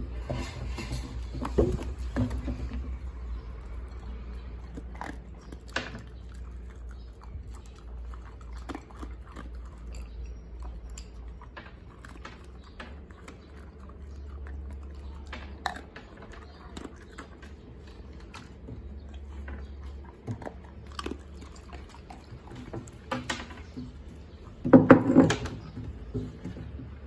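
Two dogs crunching and chewing dry kibble from a hand-held bowl, a steady run of crisp crunches. Near the end there is a louder clatter as the bowl comes down on the wooden floor and kibble scatters.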